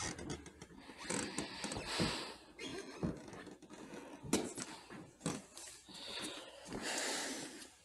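Scattered rustling and shuffling footsteps with a few light knocks as people move about.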